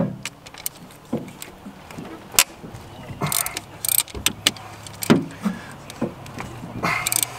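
Irregular metallic clicks and knocks of hand tools working the cylinder-head nuts of a Ford flathead V8, with a faint low steady hum coming in about halfway through.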